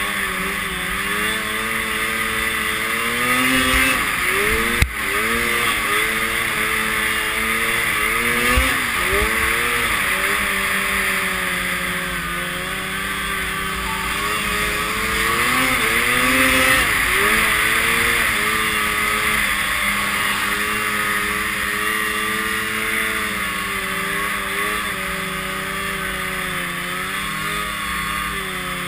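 Arctic Cat M7 snowmobile's 700 cc two-stroke twin running under load in deep powder, its revs climbing and dropping again and again, over a steady rushing noise. A single sharp knock about five seconds in.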